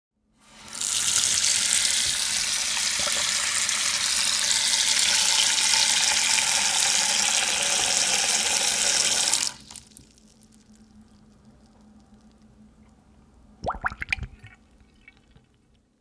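Sink faucet turned on and running in a steady full stream, then shut off abruptly about nine and a half seconds in. Faint trickling and dripping follow, with a short burst of louder sounds near the end.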